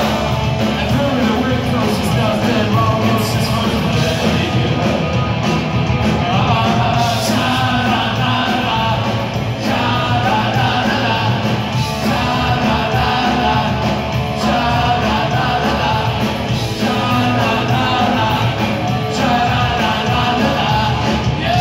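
Live punk rock band playing loudly, with a male singer over drums and electric bass.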